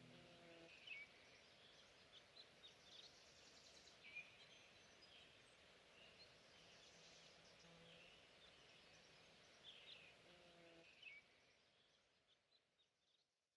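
Near silence: faint outdoor ambience with scattered bird chirps, fading out near the end.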